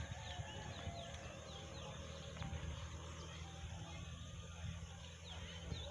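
Small birds chirping: many short, quick falling notes repeated throughout, over a steady low rumble.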